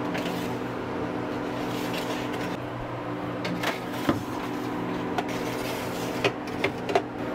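Home freeze dryer running with a steady hum, while metal trays of peppers are slid onto its shelves with a few light clicks and scrapes in the second half.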